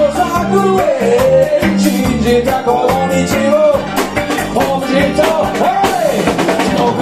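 Live reggae band playing, with drum kit, guitar and keyboard, and a man singing over them into a microphone, heard in a small club.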